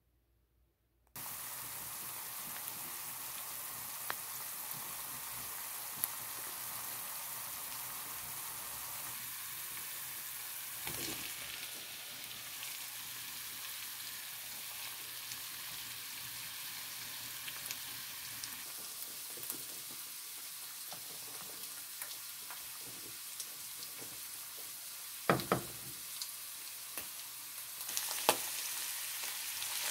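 Chopped onion, bamboo shoots and baby corn sizzling steadily in a nonstick frying pan, starting suddenly about a second in, with scattered small clicks. A couple of sharp knocks come about 25 seconds in, and the sizzling grows louder near the end.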